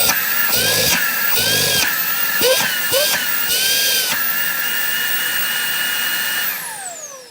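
Puppyoo T11 Mate cordless stick vacuum's brushless motor running on its max setting with a high whine. For the first four seconds the pitch wavers and the rush of air comes in surges, then it runs steady. Near the end the whine falls in pitch and fades as the motor winds down.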